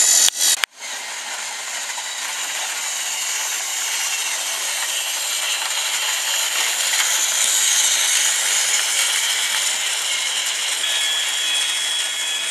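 Small electric motor and plastic gears of a battery-powered toy train whirring and rattling steadily as it runs along the track, after a brief cut-out of the sound about half a second in.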